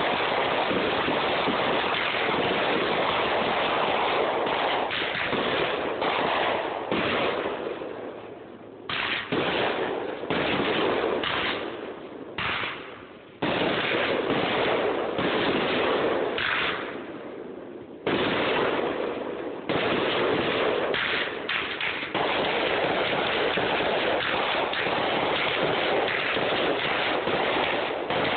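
Fireworks going off in a near-continuous barrage of bursts and crackling, with a few brief lulls, heard through a phone's microphone.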